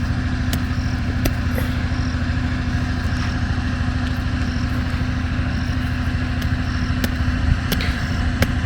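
Generator engine running steadily, a constant low hum. A faint high chirp repeats about once a second, with a few light clicks.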